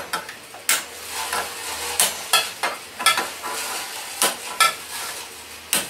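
A dozen or so irregular sharp clinks and knocks of a metal utensil against a steel pan on a gas stove, some ringing briefly, over a faint steady hiss.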